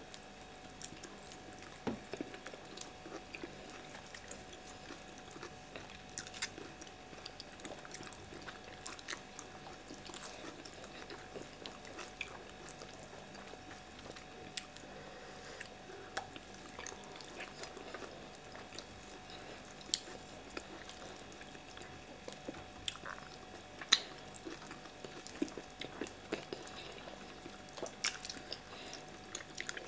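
Chewing and eating sounds of yam fufu with okra soup eaten by hand: soft chewing and mouth noises with scattered small clicks and wet squishes, over a faint steady hum. The sharpest click comes a little before the end.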